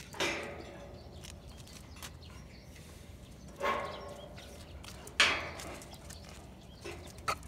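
Bolt latch of a steel mesh gate being worked by hand: a few separate metallic clanks and rattles a couple of seconds apart, with a few quick clicks near the end.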